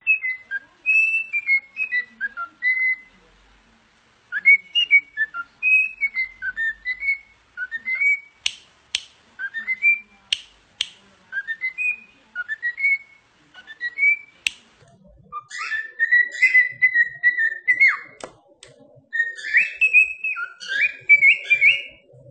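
Cockatiel whistling a tune: short phrases of clear notes that glide up and down, with longer held whistles in the last third. A few sharp clicks come through in the middle.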